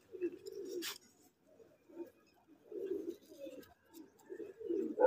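Domestic pigeon cooing: low, soft coos in three or four short bouts, with a brief click a little under a second in.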